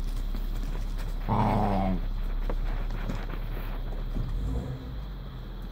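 Puppy giving a short play growl about a second in while the litter mouths and chews at a person's hand, with a fainter growl later on.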